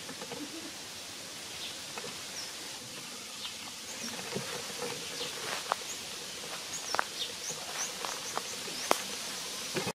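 Forest ambience: a steady insect hiss with many short, high bird chirps. A few sharp snaps or clicks come in the second half, the loudest near the end.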